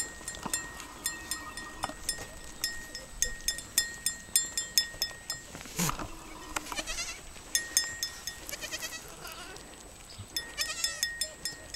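Goats bleating, a nanny with her newborn kids: a lower call about halfway through and several shorter, wavering higher calls. Behind them runs a quick series of light, high clicks.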